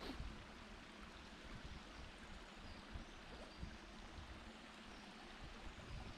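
Faint, steady rush of a shallow stream sheeting down a bare rock slab, with a few soft low thumps.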